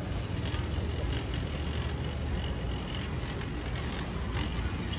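Metal shopping cart rolling across a polished concrete floor: a steady low rumble from the wheels with light clicks and rattles.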